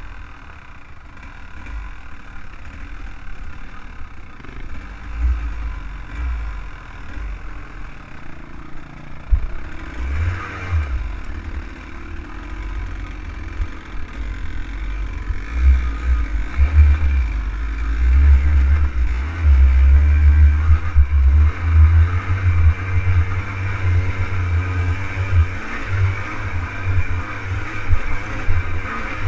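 Off-road vehicle engine running as it is driven over a rough, rocky trail, with a heavy low rumble from the ride; it gets louder from about halfway through.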